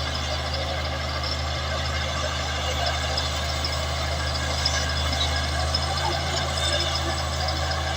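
Large bulldozer's diesel engine running steadily: a constant low drone under a noisy mechanical clatter.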